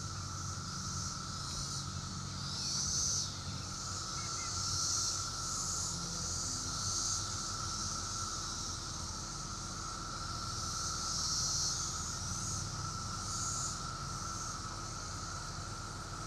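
Chorus of 17-year periodical cicadas: a steady high drone with a buzzing layer above it that swells and fades every second or two.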